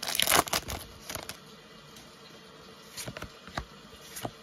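Foil booster-pack wrapper crinkling as it is torn open, loudest in the first second. Then a few light clicks and rustles of trading cards being handled.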